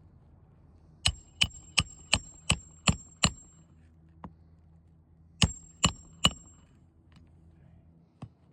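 Hammer driving roofing nails to fasten a replacement asphalt shingle: a run of seven quick ringing strikes, about three a second, then a pause and three more strikes.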